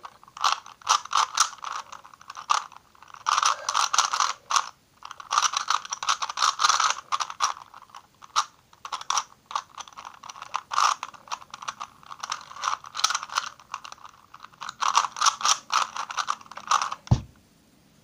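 Plastic 3x3 Rubik's cube being turned fast by hand: bursts of rapid clicking, rattling layer turns broken by short pauses. The clicking stops with a single knock near the end.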